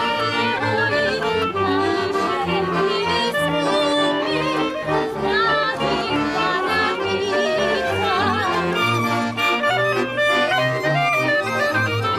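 Slovak folk band playing a lively tune: violins carry a quick melody over a pulsing bass line, with a woman singing along.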